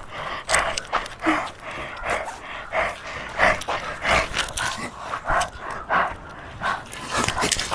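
A person's heavy, ragged breathing in repeated gasps, about two a second.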